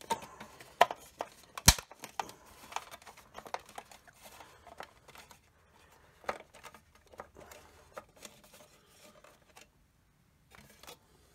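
Hard plastic toy body being handled and turned over in the hands: scattered clicks and taps of plastic, the sharpest about two seconds in, dying away near the end.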